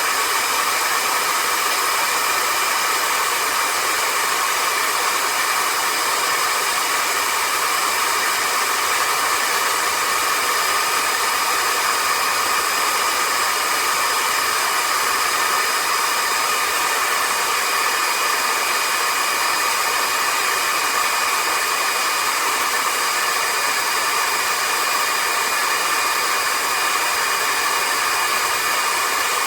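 Cordless stick vacuum cleaner (Vistefly V15s Max) running steadily: a rushing airflow with a high, steady motor whine over it.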